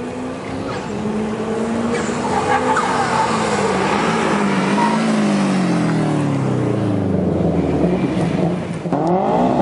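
Car engines running at a drag-strip start line, a blue Subaru Impreza among them, with a steady engine note whose pitch sags slowly over several seconds. Near the end another car's engine revs, its pitch climbing quickly.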